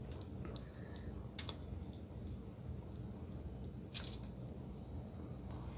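Thickening tamarind sauce simmering in a stainless steel pot while stirred with a silicone spatula: a low steady hum with scattered small clicks and pops, and one sharper click about four seconds in.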